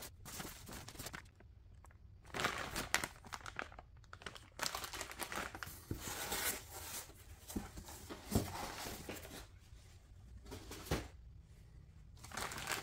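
Cardboard box flaps and plastic packaging bags rustling and crinkling in irregular bursts as the contents are unpacked, with a couple of light knocks.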